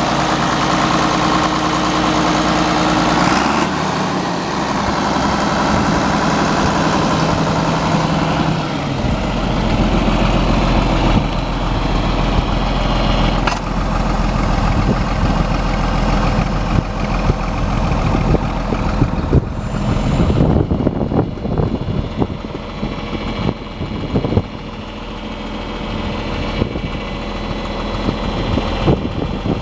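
John Deere 4640 tractor's six-cylinder turbocharged diesel engine running, its speed dropping about nine seconds in, then running steadily at a lower speed.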